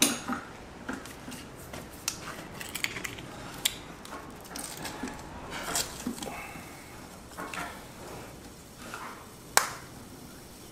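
Scattered light clicks and small knocks as a plastic ketchup bottle is handled and opened, with one sharp click a little before the end.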